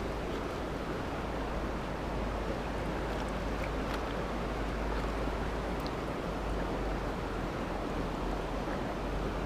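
Steady rushing of a flowing river, with a few faint clicks.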